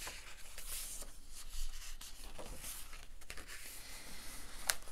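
Pages of a hardback book being turned and smoothed by hand: paper rustling and rubbing, with one sharp click near the end.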